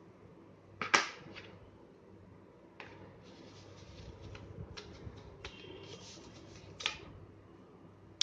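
Scissors, a plastic ruler and other craft tools being picked up and set down on flattened cardboard. There is one sharp click about a second in, then several lighter taps and a brief rustle.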